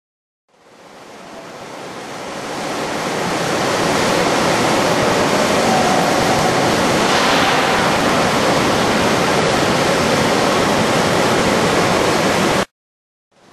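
A loud, steady rushing hiss, like air or water noise, fading in over the first few seconds and cutting off abruptly near the end.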